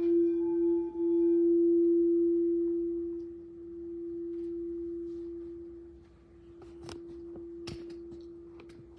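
Crystal singing bowl ringing a single pure F note, slowly dying away with gentle swells in loudness. A couple of faint clicks come near the end.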